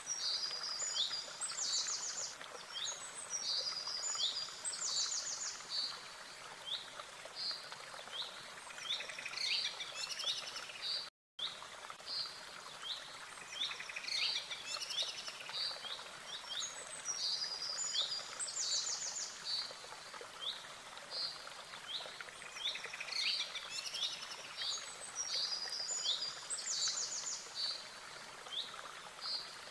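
Small birds chirping and trilling, many short calls in quick runs over a steady hiss, with a brief dropout about eleven seconds in.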